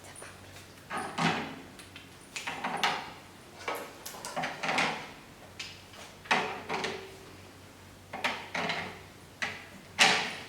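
A series of knocks and short sliding scrapes from hard machine parts being handled and set into their holder slots, about eight separate sounds at uneven intervals, the last and loudest near the end.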